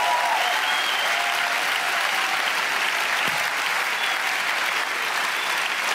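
A large audience in a theatre applauding steadily, many hands clapping at once at an even, sustained level.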